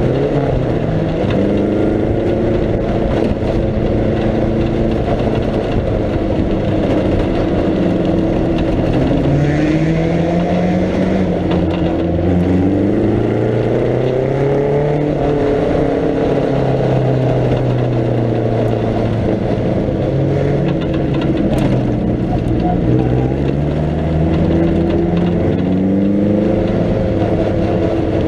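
1937 Riley 12/4 Sprite Special's four-cylinder racing engine under hard acceleration, its pitch climbing in long pulls and dropping sharply at each gear change, several times over. The preselector gearbox has lost second gear, so the changes run between first and third.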